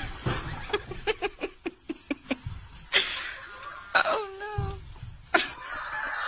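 A person laughing in short repeated bursts, with two sharp knocks as the tumbling goats hit the pen's boards and siding, and a short wavering cry between them.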